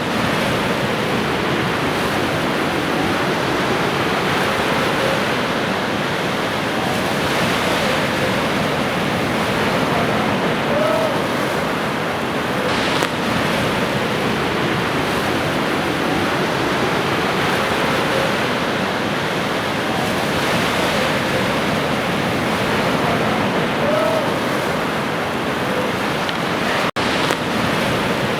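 Ocean surf washing steadily onto a shore, with a few faint short bird calls now and then. There is a momentary dropout in the sound near the end.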